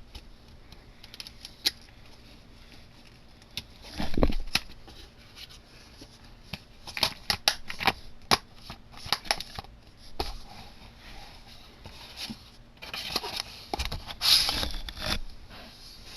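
Handling of a DVD box set and its plastic cases: a run of sharp clicks and taps, a louder knock about four seconds in, and a short rustle of packaging near the end.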